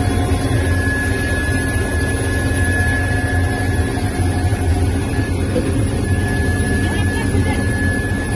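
Helicopter's turbine engines and rotor running steadily, heard from inside the cabin at the open door: a constant loud low drone with a steady high whine.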